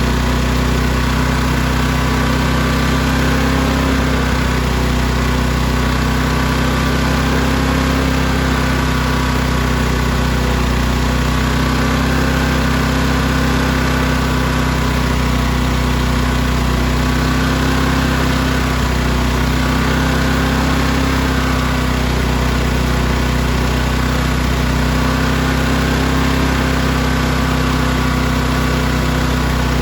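Firman inverter generator's small engine running steadily on choke, its pitch wavering slightly every several seconds. It runs only with the choke on, a sign that its carburetor needs cleaning.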